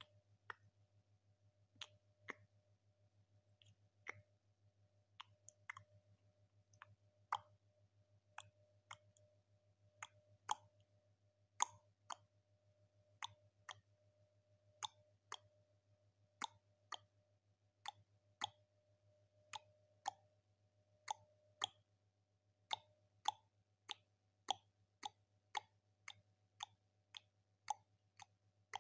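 A run of faint, sharp clicks, irregularly spaced at about one or two a second, over a low steady hum.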